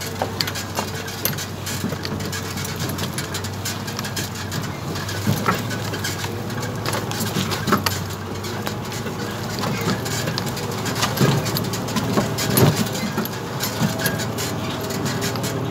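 A vehicle engine running steadily at low speed, with frequent clicks, knocks and rattles from jolting along a rough dirt track.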